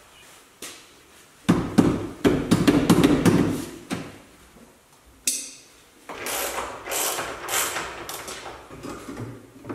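Knocks, clicks and scraping of hand tools and car body parts as a classic Porsche 911's headlight and trim are worked loose and taken off by hand. There is a cluster of loud knocks in the first few seconds, a sharp click about halfway through, then a stretch of scraping and rattling.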